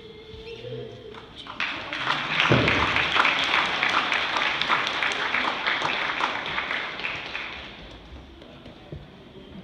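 Congregation applauding: a crowd of many hands clapping that swells in about one and a half seconds in and dies away near the end.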